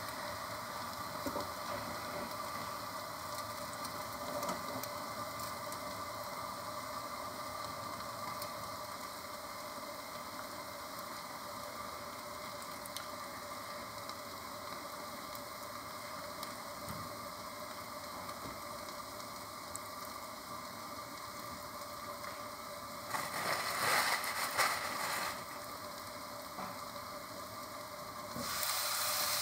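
Shrimp, potato and onion-stalk stir-fry sizzling softly under a steel lid on low heat, a steady low hiss. Twice near the end it grows briefly louder and rougher.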